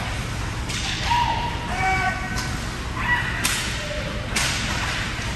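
Ice hockey play at rink level: skate blades scraping and carving the ice in several sharp swishes, with stick-and-puck cracks and thumps, over the steady low hum of the arena.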